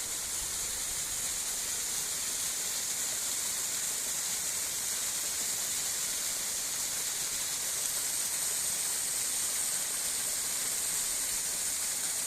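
Rainwater spouting from a crack in the mountainside as a waterfall, a steady, hissing rush with no let-up.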